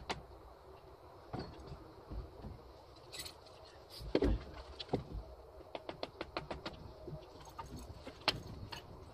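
Scattered metallic clinks, taps and knocks of hand tools and engine parts being handled on an outboard powerhead, with a louder knock about four seconds in.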